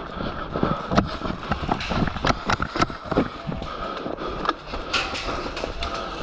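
Irregular sharp clicks and knocks, several a second at uneven spacing, over a steady outdoor background: the sounds of an airsoft game going on around the camera-wearing player.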